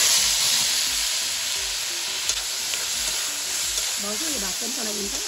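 Leafy greens frying in hot oil in a wok, a loud, steady sizzle that begins suddenly as they go in, stirred with a ladle. A voice can be heard faintly near the end.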